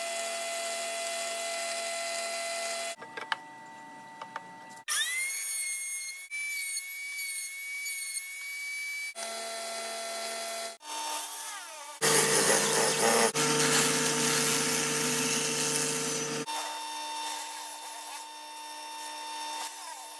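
A string of short power-tool clips joined by abrupt cuts: an electric motor-driven horizontal boring machine running with a steady whine, and a red electric drill spinning wooden stock through a cutting block to shave it into a round dowel. One clip has the drill spinning up with a rising whine about five seconds in, and a louder, rougher stretch of wood being cut sits in the middle.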